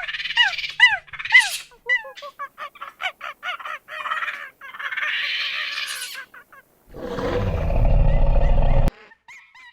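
Monkey calls: a string of short rising-and-falling squeaks, then rapid chattering calls at about three or four a second and a harsh screech, followed about seven seconds in by a loud, rough call that stops abruptly.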